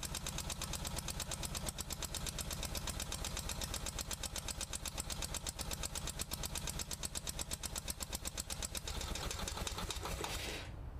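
Onan CCK two-cylinder air-cooled gas engine on a 1973 Miller welder running with a quick, even pulsing beat. It is misfiring on one cylinder, which the owner blames on a bad intake gasket. Near the end the beat blurs and the engine cuts off as the carburetor bowl runs dry with the fuel pump off.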